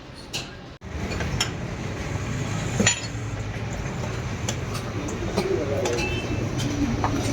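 Scattered metallic clinks and ticks of tools working the tyre off a motorcycle wheel rim, over a steady low hum.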